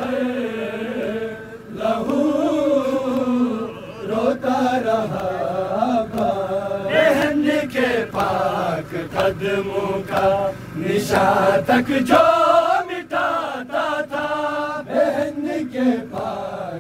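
Voices chanting a noha, a Shia Muharram mourning lament, in long held phrases that rise and fall.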